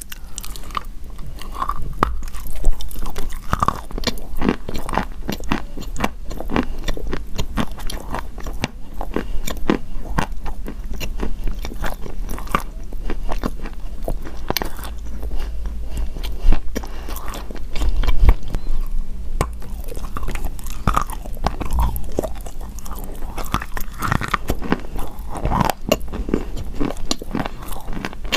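Pieces of chalk being bitten and chewed close to the microphone: a continuous run of dry, crackly crunches, with a few louder bites.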